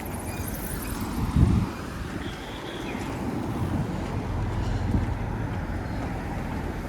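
Wind buffeting the microphone over steady city street traffic, with a loud low thump about a second and a half in.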